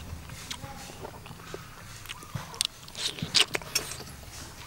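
Close-up eating sounds: a person biting and chewing cooked fish flesh, with scattered wet smacks and crisp clicks, loudest a little past three seconds in.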